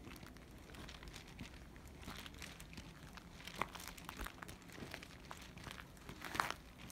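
Footsteps crunching in packed snow, a series of short crackly crunches with the loudest one near the end.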